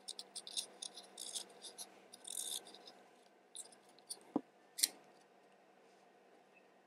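A tiny Allen key working the small sight screw on an airsoft pistol slide: faint, quick ticks and scrapes of metal on metal for about three seconds, then two sharper clicks about four and a half seconds in.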